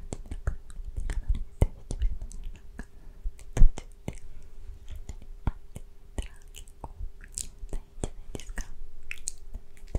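Inaudible close-microphone ASMR whispering with frequent wet mouth clicks and lip smacks, one louder click about three and a half seconds in. A faint steady hum runs underneath.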